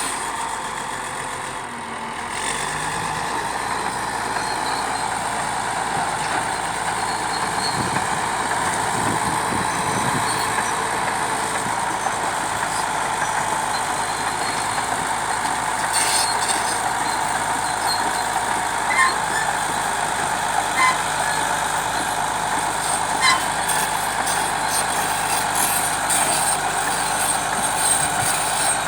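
Bulldozer's diesel engine running steadily under work, with a few short sharp knocks about two-thirds of the way through.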